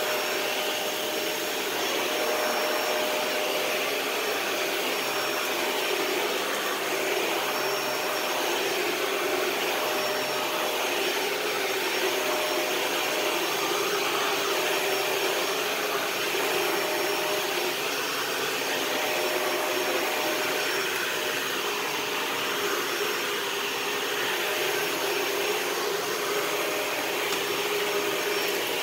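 Dyson DC41 Animal Complete ball-type upright vacuum cleaner running steadily, its motor giving a steady whine over a constant rush of air.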